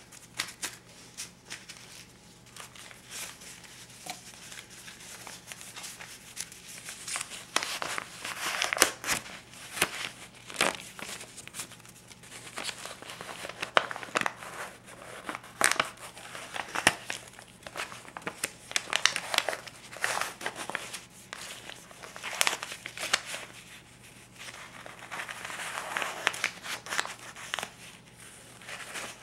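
US paper bills, a stack of 50s and 20s, handled and flipped through by hand: crisp, irregular snaps and crinkles of the banknote paper, sparse at first and busier from about seven seconds in, with a stretch of softer rubbing near the end.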